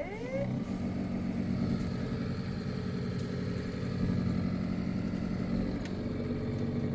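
Hitachi fridge's freezer fan motor spinning up, its pitch rising over the first half second, then running with a steady hum.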